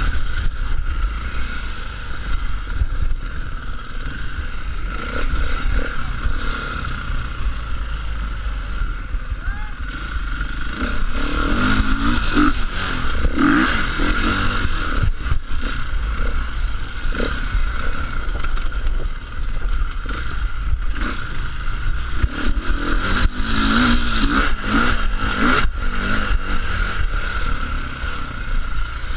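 Enduro motorcycle engine running and revving up and down as it is ridden over rough ground, picked up by a helmet camera, with a heavy low rumble on the microphone. Scattered clattering knocks come from the bike and stones, most of them around the middle and near the end.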